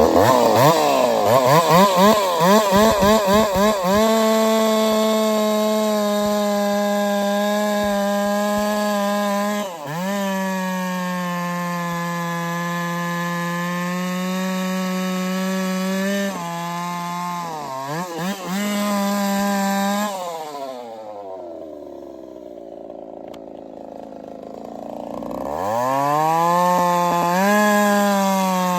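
Holzfforma 372 clone chainsaw with a big bore kit and 8-pin sprocket running at full throttle, cutting through oak. Its high engine note wavers at first, then holds steady with brief dips as the chain loads in the cut. About 20 seconds in the throttle is released and the engine drops to a low idle, then it revs back up into the cut near the end.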